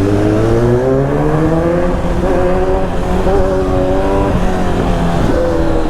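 Kawasaki Z900 with an aftermarket LeoVince exhaust, engine pulling under throttle from the rider's seat. The pitch climbs over the first couple of seconds and then holds, with short dips about two, four and five seconds in.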